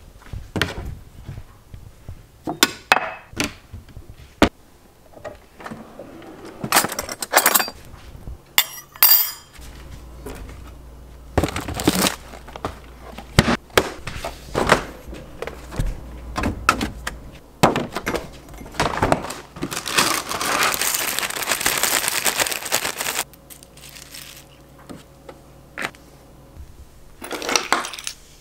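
Kitchen handling sounds: clinks of glass and dishes and scattered knocks, with about three seconds of steady rushing hiss a little past the middle.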